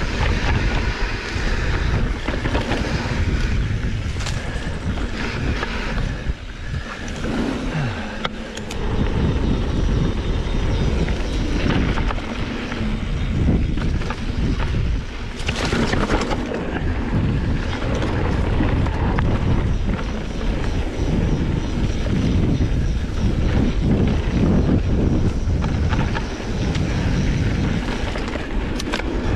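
Mountain bike descending a dirt trail: wind buffeting the camera microphone, with scattered clicks and knocks from the bike over rough ground and a brief louder hiss about halfway through.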